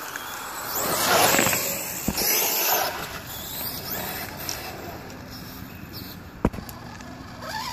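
Brushless electric motor of an RC crawler truck whining as it speeds away on a wet road, with tyre noise. The sound is loudest about a second in and fades as the truck draws off, with one sharp click near the end.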